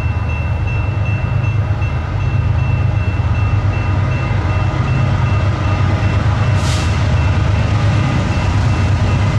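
BNSF diesel locomotives leading a double-stack container train, approaching with a loud steady low engine rumble. A grade-crossing bell dings steadily above it.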